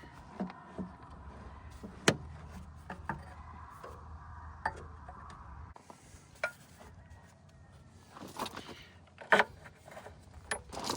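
Scattered knocks and clanks of metal parts and tools being handled, the loudest a sharp knock about two seconds in and a cluster of them near the end, over a low steady hum that stops about six seconds in.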